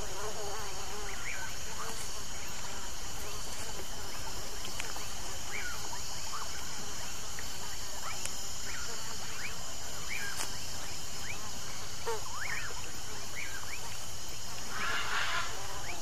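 A night-time insect chorus: a steady high-pitched drone, with many short chirping calls scattered through it. A brief burst of noise comes near the end.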